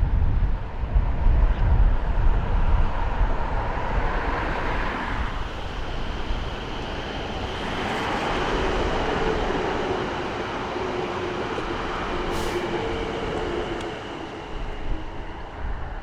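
Passenger train passing close by: a loud low rumble at first, then a steady run with a faint humming tone, easing off near the end.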